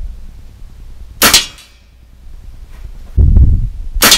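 Sig Sauer ASP20 .22 nitro-piston break-barrel air rifle being fired from a bench. There is a sharp crack about a second in, a heavy low thump about three seconds in, and another sharp crack near the end.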